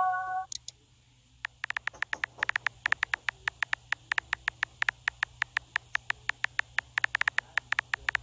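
Rapid, irregular keyboard tap clicks from a texting-story app's simulated typing, several a second, as a message is typed out letter by letter. A short chime sounds right at the start, then there is a pause of about a second before the tapping begins.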